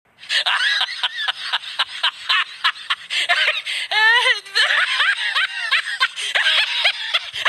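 High-pitched comedic laughter, a rapid run of short giggling cackles that keeps going with only brief breaks.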